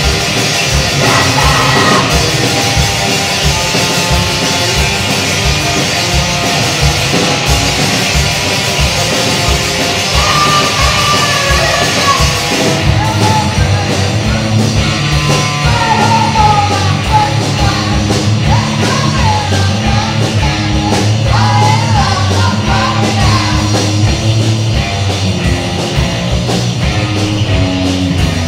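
Live fastcore punk band playing loud, with a fast steady drum beat and yelled vocals.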